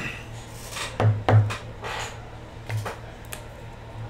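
Trading cards and their plastic holders being handled on a table: a handful of short rubbing and sliding scrapes with a few soft knocks.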